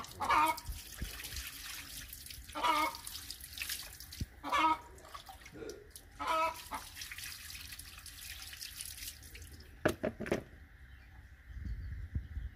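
Water poured from a plastic scoop splashing over catfish being rinsed on a tiled floor, in several pours. The splashing stops about ten seconds in, followed by two sharp knocks.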